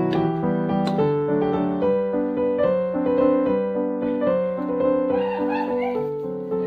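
Background piano music in waltz time, a melody of single notes over changing chords.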